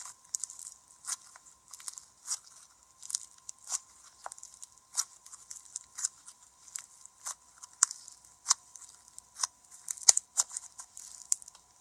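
Glitter foam slime being squeezed and poked by hand, giving a run of short, sharp crackles and clicks about once or twice a second, over a faint steady hum.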